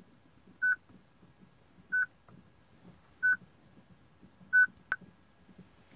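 Peugeot RD45 car radio beeping: short beeps at one steady high pitch, one about every 1.3 seconds, four times. This is the radio's warning that the car's chassis number (VIN) has not been coded into it; the beeping stops once the VIN is written in. A single sharp click comes about five seconds in.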